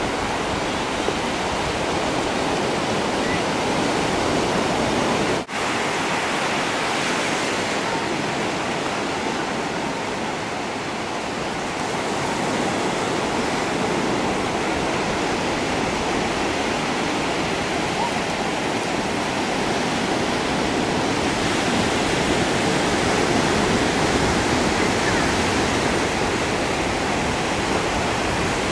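Ocean surf: waves breaking and washing up the beach, a steady rushing noise that dips briefly about five and a half seconds in and swells a little later.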